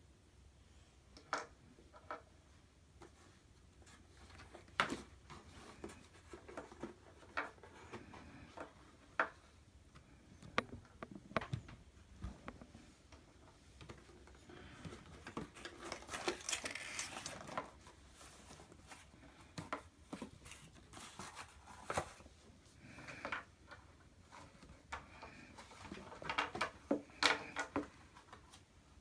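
Toys and packaging being handled: scattered light clicks and knocks, with a few seconds of rustling around the middle.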